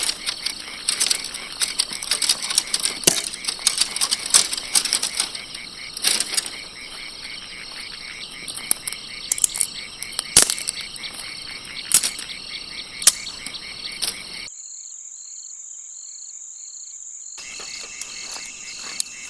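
Dry twigs and brush snapping and crackling in quick, irregular cracks, the sound of kindling being broken up for a campfire, over a steady chorus of frogs and insects. The snapping stops a few seconds before the end, leaving only the chorus.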